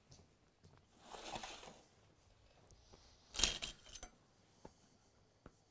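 Metal ladle clinking against a cooking pot while okra stew is scooped: a short cluster of clanks about three and a half seconds in, then a few light taps, after a soft rustle of handling about a second in.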